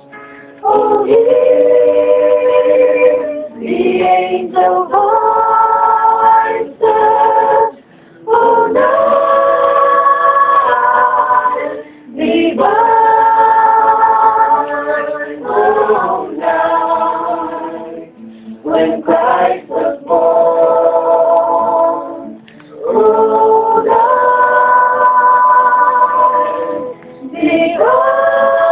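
A choir singing a cappella: sustained chords held in phrases of a few seconds, each broken off by a short pause.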